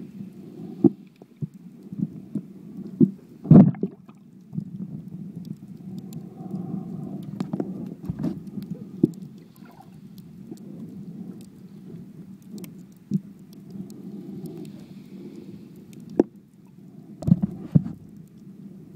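Muffled underwater noise picked up by an iPhone 4 sealed in a waterproof case: a steady low rumble with scattered knocks and clicks from the case being handled. The loudest thumps come about three and a half seconds in and again near the end.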